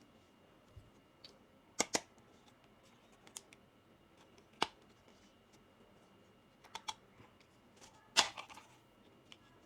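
Small plastic toy kitchen pieces being handled, giving scattered light clicks and taps, the loudest about eight seconds in.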